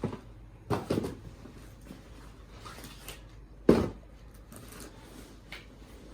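Items being handled and unpacked by hand: a few knocks and rustles, the loudest knock about three and a half seconds in.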